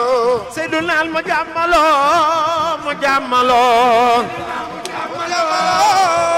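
A man's solo voice chanting a devotional zikr song into a microphone, with long held notes that waver in a wide, ornamented vibrato.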